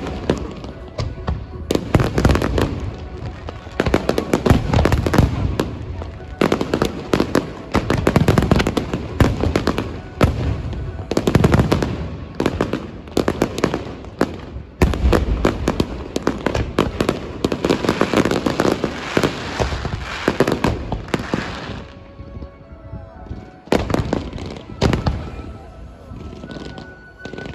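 Fireworks going off in rapid overlapping bangs and crackles, thinning to a few scattered pops about three quarters of the way through before picking up again.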